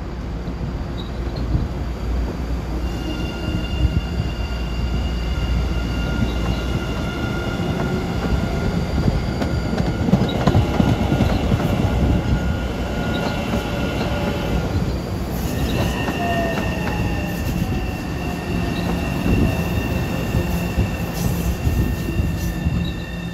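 Passing trains: steel wheels squealing in several steady high tones over a continuous rumble of rolling stock, with the squeal changing pitch about two-thirds of the way through. A commuter rail train runs in the background.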